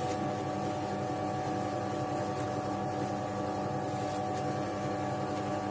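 Scheppach DP19 Vario drill press running steadily at its 630 rpm setting with the bit clear of the work: an even motor and spindle hum made up of several steady tones.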